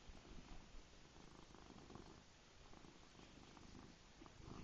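A domestic cat purring close up, faint and steady.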